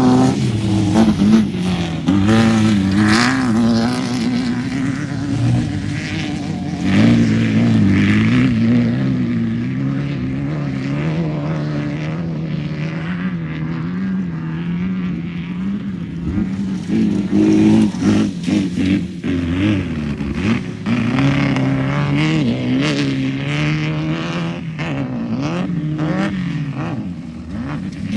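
Off-road race vehicle engine running hard, its pitch rising and falling again and again as the throttle is worked, with scattered knocks and clatter throughout.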